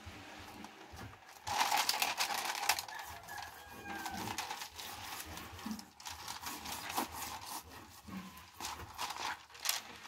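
Plastic static-cling window film crinkling and rustling as hands smooth it onto window glass and lift it off again. It comes as a run of small crackles, loudest in a stretch early on and again in the second half.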